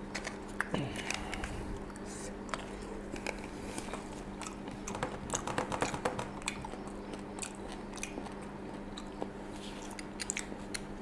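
Soft chewing and mouth noises with small scattered clicks of handling at a table, over a steady low electrical hum.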